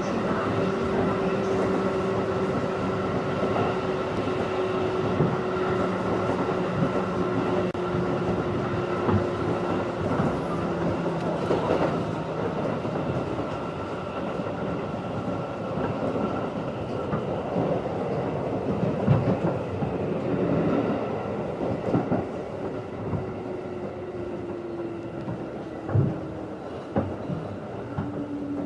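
JR 211 series electric train heard from inside the passenger car while running. A steady motor and gear whine slowly drops in pitch as the train eases off, and a few sharp rail-joint clacks sound in the second half.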